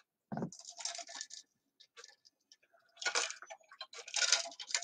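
A person drinking from a tumbler: a dull knock about a third of a second in, then crackly bursts of sipping and handling noise.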